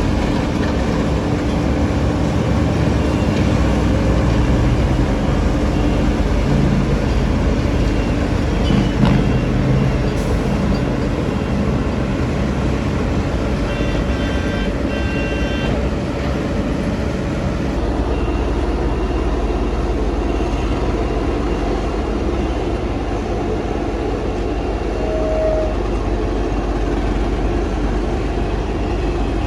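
Road traffic: trucks and cars running with a steady engine rumble. A vehicle horn sounds for about two seconds near the middle.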